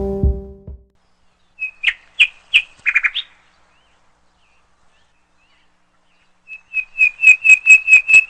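A bird calling: a few sharp chirps about two seconds in, then a quick, evenly spaced run of repeated chirps, about three a second, over the last two seconds. Background music fades out at the start.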